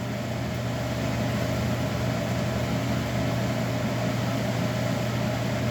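A steady, even machine hum, like a shop fan or motor running, with no other events.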